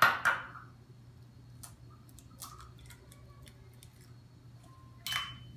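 An egg being knocked against the rim of a small ceramic bowl, a couple of sharp taps at the start, then faint scattered clicks and crackles as the shell is pulled apart. A brief louder scrape about five seconds in.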